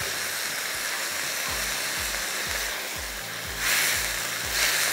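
Minced meat and onions sizzling in a hot nonstick wok as they are stirred with a spatula, swelling louder twice in the second half. Soft background music with a steady low beat runs underneath.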